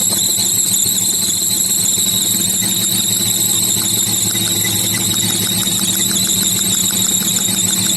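BMW E36 320i 2.0-litre inline-six running at idle with a steady high-pitched whine and a faint rapid ticking from the ignition coil. The engine is misfiring on cylinder four, which has lost compression.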